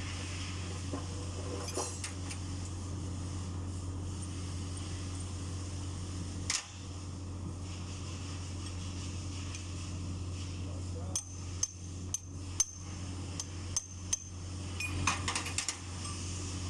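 Metal tools striking and clinking on the metal parts of a skid loader's hydraulic travel motor under repair. There are a few single strikes early on, then a quick series of about a dozen sharp, ringing strikes in the last third, over a steady low hum.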